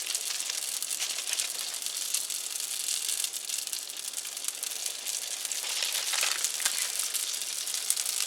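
Pieces of dough frying in hot oil and butter in a pan, a steady sizzle full of small crackling pops.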